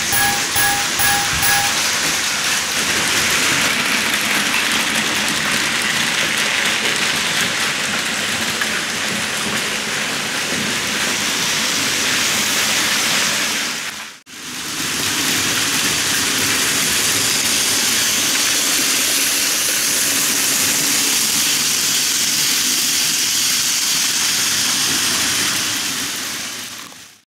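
Model level-crossing warning bell dinging quickly, about three to four times a second, stopping about two seconds in. Then the steady noise of model trains running on the track. It breaks off for a moment about halfway and fades out at the end.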